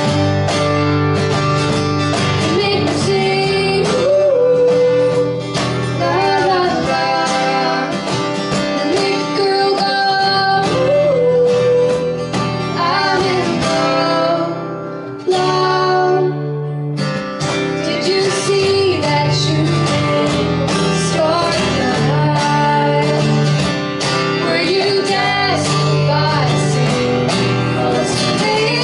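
Live acoustic band playing a song: two acoustic guitars strumming and picking over a cajon beat, with a woman singing. The music thins out briefly about halfway through, then the full band comes back in.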